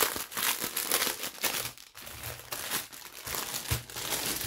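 Clear plastic bag holding packets of resin diamond-painting drills crinkling irregularly as it is handled and opened by hand.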